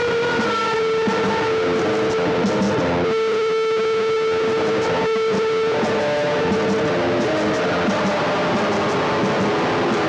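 Guitar playing an instrumental passage with no singing, one note held for about three seconds near the middle.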